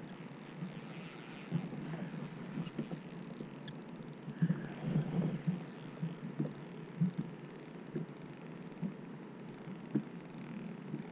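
Ambience in a small boat on a choppy lake: irregular soft knocks of small waves slapping the hull over a steady high hiss.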